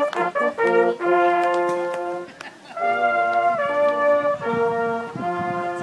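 Small brass band (horns and trumpets) playing long held chords, with a brief break about two and a half seconds in.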